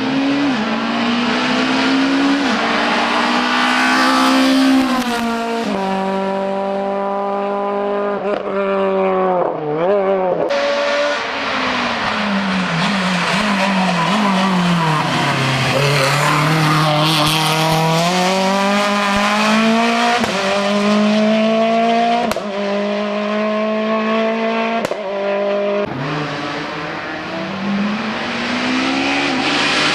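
Hill-climb race car engine, loud, revving hard through the gears. Its pitch climbs, then drops at each shift, and falls and rises again through corners.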